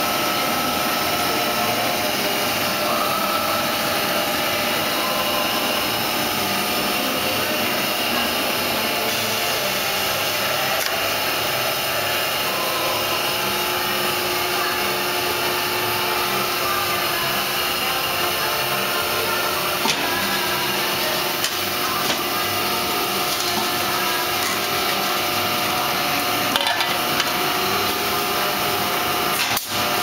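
Steady running noise of an industrial pail-filling line: an even hiss and hum with several steady tones, and a few short clicks and knocks in the last third.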